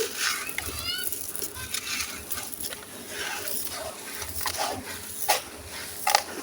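Gritty sand-cement chunks crumbling and crunching by hand, an irregular run of crackles and small cracks. A short high chirp sounds about a second in.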